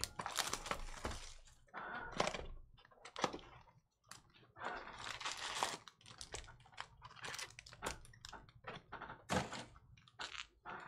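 Cardboard Panini Mosaic Fast Break box being opened and its foil-wrapped card packs pulled out and handled: irregular crinkling rustles with a few light knocks.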